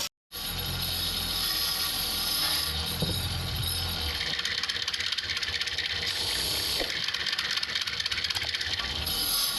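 Wood lathe running with a steady low hum, a cutting tool hissing and rattling against the spinning wood.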